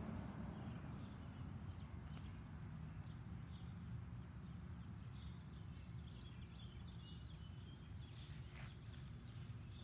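Quiet backyard ambience: a low steady rumble with faint bird chirps. About eight seconds in there is a short rustle as a dog rolls on its back in the grass.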